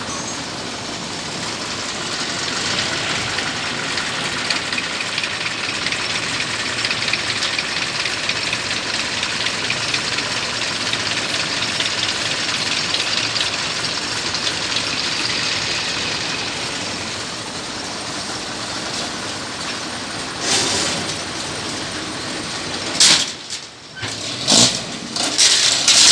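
An engine running steadily. Near the end its level drops and a few short, loud bursts break in.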